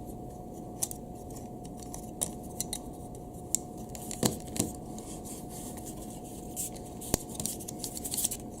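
Plastic and metal parts of a camera clamp mount being handled, unscrewed and fitted together with a gimbal: scattered small clicks and scrapes, the sharpest a little after four seconds and about seven seconds in. A faint steady tone sits underneath.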